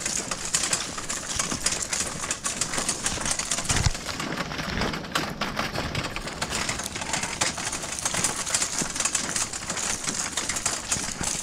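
Continuous crunching and rattling from walking a gravel track while hauling a deer cart loaded with treestands and hunting gear: a dense, even patter of small clicks.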